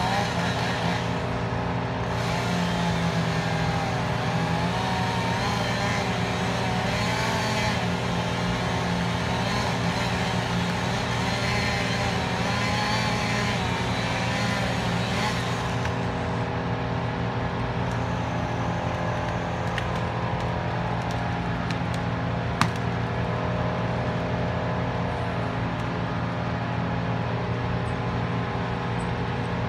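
Heavy diesel engine of a truck-mounted crane running steadily at work, with a wavering higher-pitched tone over it that drops away about halfway through. A single sharp knock comes about three-quarters of the way in.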